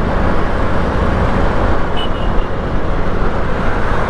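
Steady rushing road and wind noise from riding a scooter in dense city traffic, with a short high beep about two seconds in.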